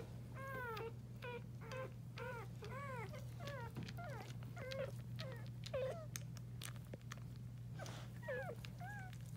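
Newborn Portuguese Water Dog puppies squeaking and mewling as they nurse: short, high cries that rise and fall, about two a second, with faint clicks, over a steady low hum.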